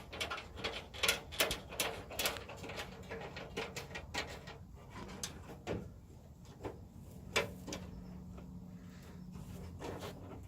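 Irregular clicks and knocks of parts and hand tools being handled while body panels are fitted to a car, thickest in the first half, with a faint steady low hum in the background later on.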